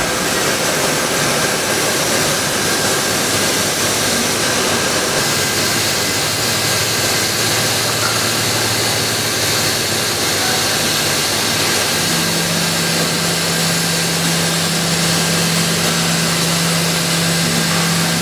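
Large flatbed CO2 laser cutting machine running while cutting acrylic: a loud, steady whoosh of blower and air noise, joined about two-thirds of the way through by a steady low hum.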